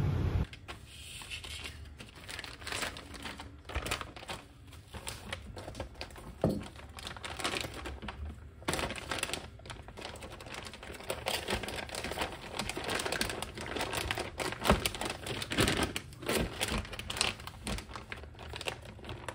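Thin plastic food packaging, a tortilla-wrap bag, crinkling and rustling in irregular bursts as hands open, flatten and fold it. A brief low steady rumble is heard at the very start.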